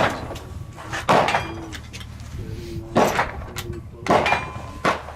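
A rifle's bolt being worked: about five sharp metallic clacks, roughly a second apart.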